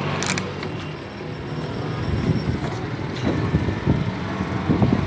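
Road vehicle running nearby: a noisy low rumble that grows louder from about two seconds in, with a short knock near the start.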